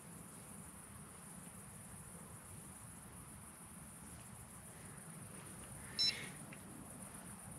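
Crickets chirring steadily in the night air. About six seconds in, one short, loud, high beep cuts in.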